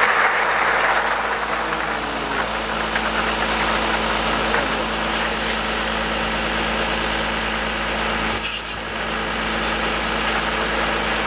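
Over-the-row harvesting machine running steadily, a dense mechanical noise over a constant low engine hum.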